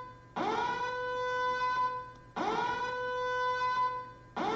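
Alarm sound from a Raspberry Pi burglar-alarm program played through a speaker: a tone that swoops up in pitch, holds steady for about a second and a half, then fades. It repeats every two seconds, three times.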